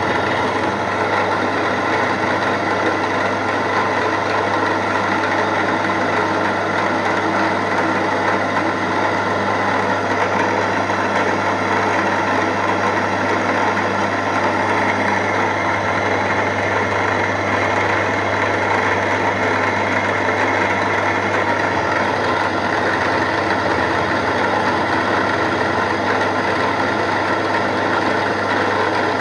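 Milling machine running steadily as its end mill cuts a small metal slide valve for a model steam engine, a constant motor hum under the cutting noise.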